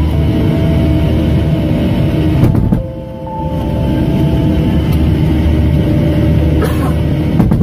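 Boeing 737's CFM56 turbofan engine running, heard from inside the cabin: a loud, steady rumble with a few whining tones on top. It dips briefly about three seconds in.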